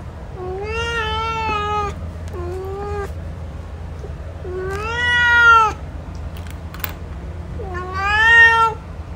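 Male domestic cat meowing four times, drawn-out meows with the third and fourth the loudest, over a steady low hum.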